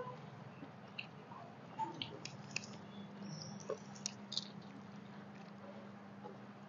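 Eating sounds: fingers mixing and squishing rice on steel plates, with faint chewing and scattered small clicks, over a steady low hum.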